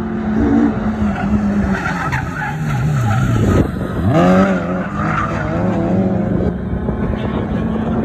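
Race car passing close on the circuit: its engine note falls, then climbs sharply about four seconds in as it accelerates away, over the steady drone of other cars on the track.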